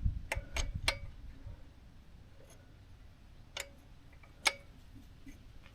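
Hand wrench turning the motorcycle's chain adjuster bolt at the rear axle: three quick sharp metallic clicks in the first second, then two more single clicks a few seconds later.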